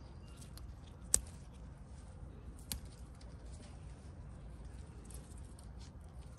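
Green chillies being picked by hand from a potted chilli plant: leaves rustling and stems snapping, with two sharper snaps about a second and nearly three seconds in, over a low steady rumble.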